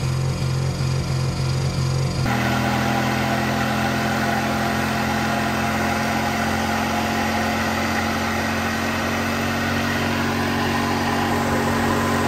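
Pickup truck engines held at high revs during tyre-smoking burnouts on grass. For the first two seconds the engine note pulses about five times a second. Then it cuts abruptly to a second truck's engine, held at a steady pitch while its rear wheels spin.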